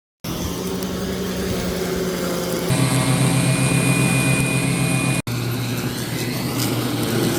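Battery-electric tracked mower running, a steady electric motor hum and whine, heard in three short cuts. Near the end there is a rising whine.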